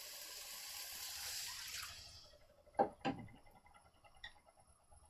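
Water running for about two seconds and then stopping, followed by two short knocks in quick succession.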